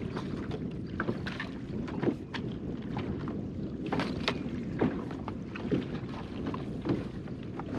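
Gear being handled and rummaged in a small boat's storage compartment: scattered light knocks and clicks of objects against one another and the hull, over steady wind and water noise.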